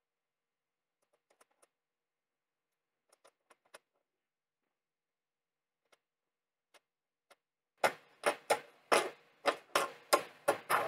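A few faint, scattered light clicks, then from about eight seconds in a fast, even run of sharp, loud clicks, about three a second.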